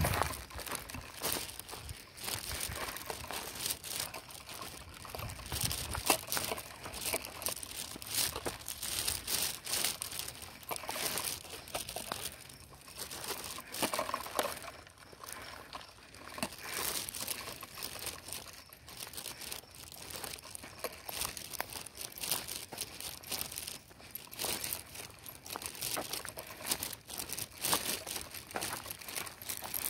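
Irregular crunching and crinkling of footsteps on a dry outdoor path, with rustling close to the microphone from the hand-held phone.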